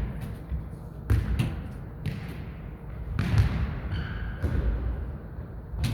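A jokgu ball being kicked and bouncing on the court: a handful of separate thuds at irregular intervals, about a second apart.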